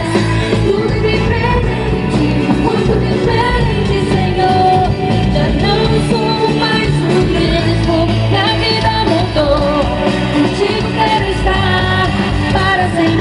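A song with singing and a heavy bass line, played loud through a Fiat Palio's car stereo turned up to maximum volume.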